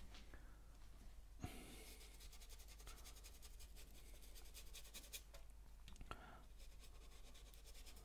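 Faint, rapid scratchy strokes of a small paintbrush working acrylic paint onto a canvas, with a single light tick about a second and a half in.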